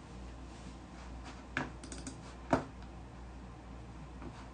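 A handful of light clicks or taps in the middle, the sharpest about two and a half seconds in, over a low steady room hum.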